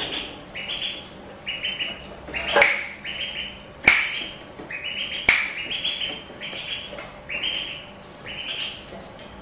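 Duckling peeping over and over, short high calls slightly more than one a second. Three sharp finger snaps, about a second and a half apart, ring out in the middle and are the loudest sounds.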